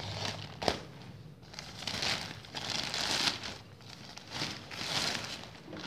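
Plastic courier mailer bag crinkling and rustling in several bursts as it is cut open and the box is pulled out, with one sharp click under a second in.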